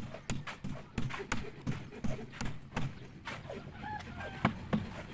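Hammer blows on a wooden column form, a run of sharp knocks about three a second.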